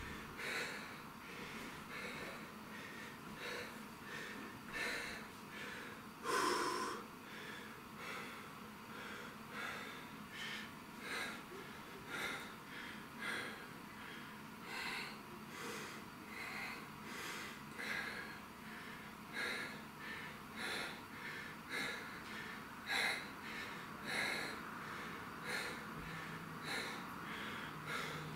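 A man's sharp, rhythmic breathing through the nose, short breaths about one and a half times a second, in time with one-arm dumbbell overhead presses. There is one louder, longer breath about six and a half seconds in.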